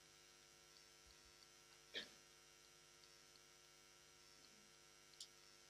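Near silence: a faint steady electrical hum, with one brief soft sound about two seconds in.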